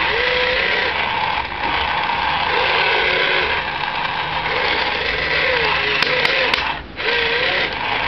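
The electric motors and plastic gearboxes of a radio-controlled wheeled excavator whirring as it moves its boom, arm and bucket and slews, the whine wavering up and down in pitch. The sound breaks off briefly near the end and then starts again.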